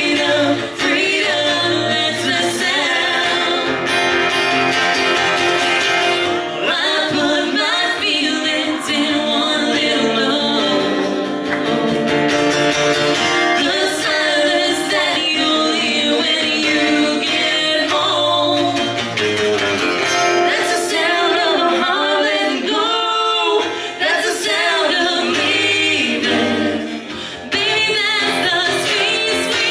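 Live country song: a female lead voice sings over acoustic guitar, with a male backing voice.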